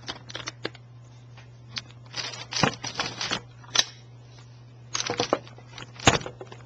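Clicks, rattles and snaps of an airsoft gun's buttstock being handled and opened by hand, in irregular clusters, with a sharper single click about four seconds in and another loud click near the end. A steady low hum runs underneath.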